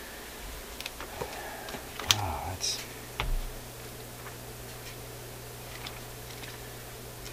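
Handling noise as a tube manual is pulled out and opened on the workbench: a few clicks, a sharp knock about two seconds in, a brief paper rustle and a low thump, over a steady low hum and faint regular ticking.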